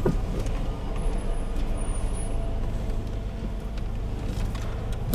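Toyota AE86's engine idling steadily, heard from inside the cabin, with a sharp click near the end.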